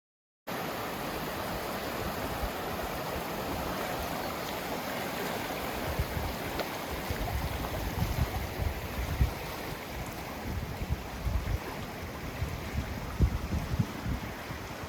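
Steady rush of running water, starting abruptly after half a second of silence, with wind buffeting the microphone in low gusty thumps from about six seconds in.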